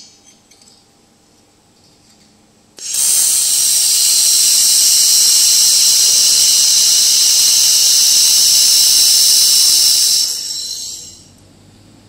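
2 kW handheld fiber laser welding gun welding a seam between two metal sheets: a loud steady hiss that starts abruptly about three seconds in, holds for about seven seconds, then tapers off as the weld stops.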